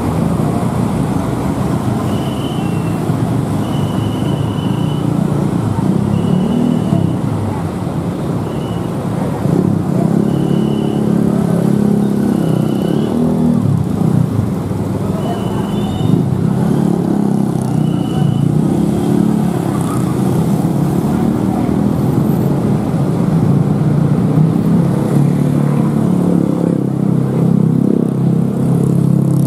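Busy road traffic at close range: cars, motorbikes and a bus passing with their engines running, a steady low rumble throughout. Over it, a short high tone repeats about nine times in the first twenty seconds.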